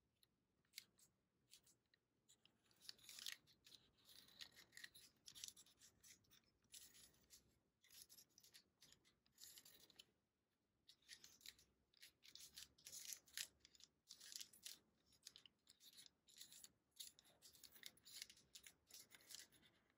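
Faint scratching of a black felt-tip marker drawing on a crinkled brown paper bag, in many short strokes, with light crackle from the crumpled paper.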